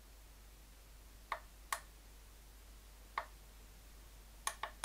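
Push buttons on a UYUE 946-1010 preheater's temperature controller clicking as they are pressed to set the target temperature: three separate clicks, then a quick run of clicks near the end.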